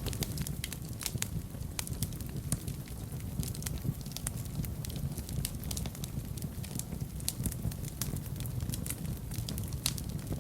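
Wood fire burning in a fireplace: a steady low rumble of the flames with frequent irregular crackles and pops.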